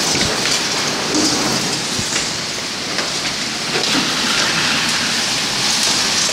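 Heavy monsoon-style downpour driven by strong storm winds: a loud, steady rush of rain pelting the ground and buildings, with scattered sharp ticks of drops striking.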